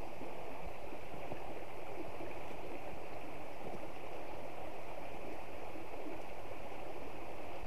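Small rocky river running steadily over stones and shallow riffles.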